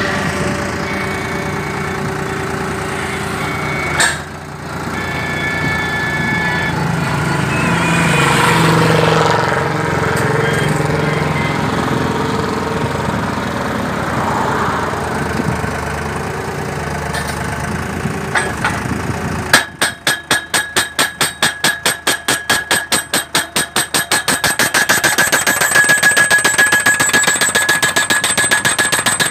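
Guardrail post-ramming machine: its engine runs steadily, with a single sharp knock about four seconds in, then about two-thirds of the way through its hammer starts striking in a fast, even rhythm of several blows a second, driving a steel barrier post into the ground.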